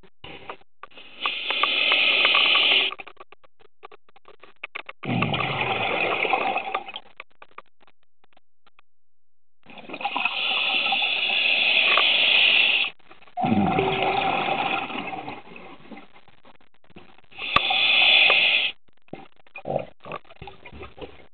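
Scuba diver breathing through a regulator underwater: long breaths come every few seconds with quiet gaps between them. Inhalations through the demand valve come as a bright hiss, and exhalations as a bubbling rush that starts low.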